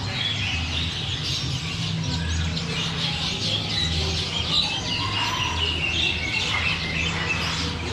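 Many caged songbirds chirping and twittering at once, a dense chorus of overlapping short high calls, over a low rumble that swells and fades.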